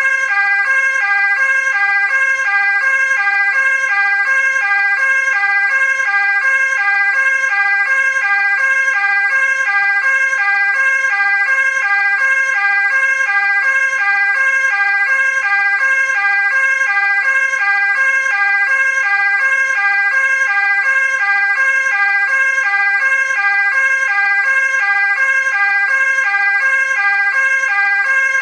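Dutch ambulance two-tone siren in its fast 'versneller' mode: two pitches alternate rapidly and evenly, about twice a second, over a steady high tone.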